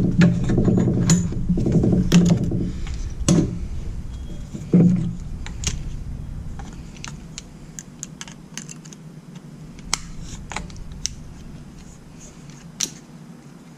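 PEX pinch clamp being twisted off a fitting with locking pliers in a bench vise: a grating run for the first two or three seconds, with two shorter ones soon after. Then scattered sharp metal clicks as the locking pliers are handled and readjusted.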